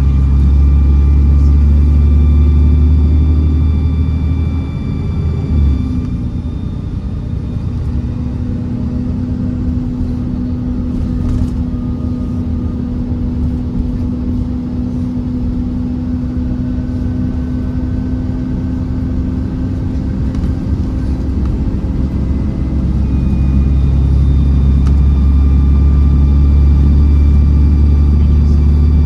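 Dennis Trident double-decker bus engine under hard load with a thin, high turbo whistle over a deep rumble. About five seconds in the engine eases off to a lighter, steadier drone, then from about 23 s it pulls hard again and the whistle returns.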